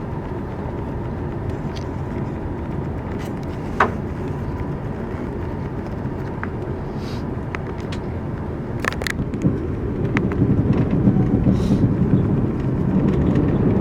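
Steady running rumble of a TGV Lyria high-speed train travelling on the line, growing louder about ten seconds in, with a sharp click about four seconds in and a few fainter ticks.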